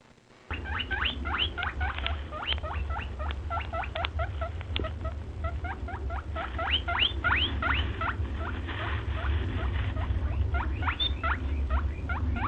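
Rabbit squeaking: a long run of short, rising squeaks, about three a second, starting about half a second in, over a steady low hum.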